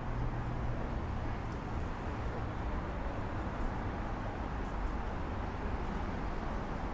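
Steady low rumble of road traffic and city background noise.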